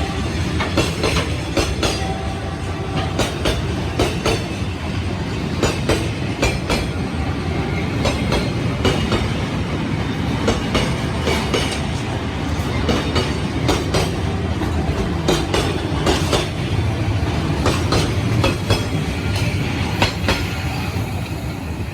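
Freight train rolling past, its wheels clacking irregularly over the rail joints above a steady rumble. It fades slightly near the end.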